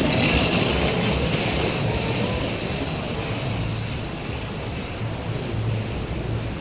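Street traffic noise from a vehicle passing, with a low rumble, fading gradually over several seconds.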